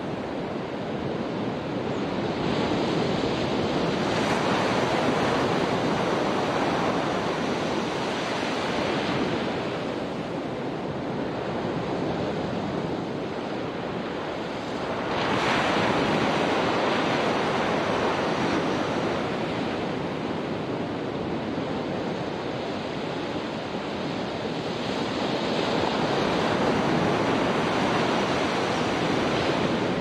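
Ocean surf washing onto a sandy beach, swelling and easing as the waves come in, with one wave breaking suddenly about halfway through.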